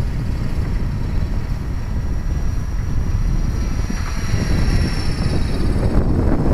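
Radio-controlled helicopter in flight heard from a camera on board. Rotor wash and wind buffet the microphone with a heavy rumble, while a high, thin whine from the drive, wavering slightly in pitch, runs above it.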